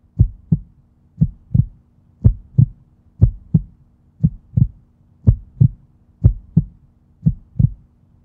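Heartbeat sound effect: pairs of low thumps, about one pair a second, over a faint steady low hum.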